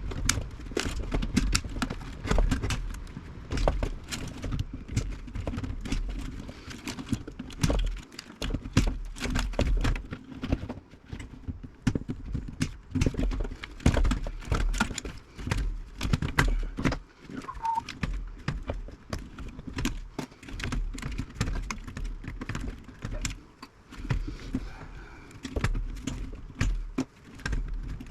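Irregular clicks, knocks and light metallic rattles as hand tools work inside the wiring of a 1950s Philco radio chassis and small parts are pulled loose, with a low handling rumble underneath.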